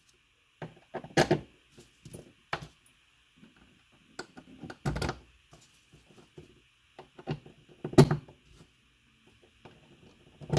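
Small screws being picked up off a wooden workbench and set into a plastic Rainbird sprinkler valve by hand: scattered light clicks and taps, with a few sharper knocks, the loudest about a second in and near eight seconds in. A faint steady high hum runs underneath.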